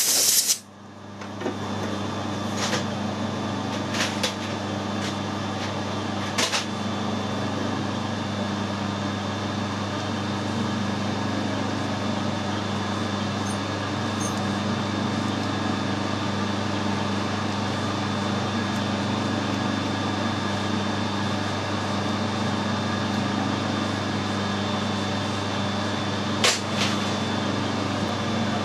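Metal lathe running steadily with a constant hum and a thin high whine, its carbide insert cutting a bar of very tough, unidentified steel, with a few short sharp clicks.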